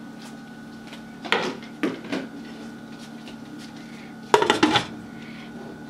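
Glass pan lid with a metal rim being handled and set down on a nonstick frying pan. There are a couple of light knocks about a second and a half and two seconds in, then a sharp clatter of several quick strikes as the lid lands just after four seconds. A faint steady hum runs underneath.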